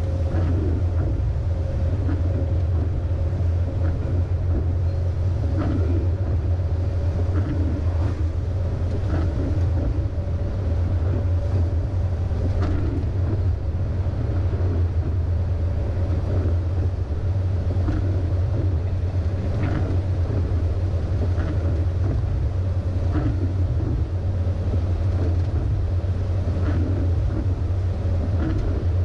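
MAN LE280B truck's diesel engine and drivetrain running steadily at highway cruise, a constant low drone with tyre noise from the wet road, heard from inside the cab. Faint light ticks come every second or two.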